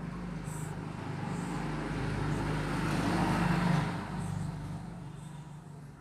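A motor vehicle passing by, its engine noise building to a peak a little over halfway through and then fading away.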